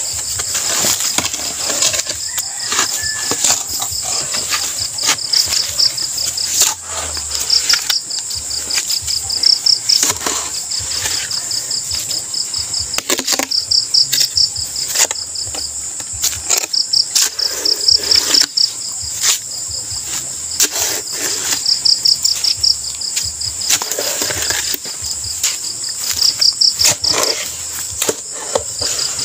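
Crickets trilling in repeated pulsed bursts over a steady high insect hum, with irregular knocks and scrapes of a metal digging bar working the soil and loosening the side of a hole.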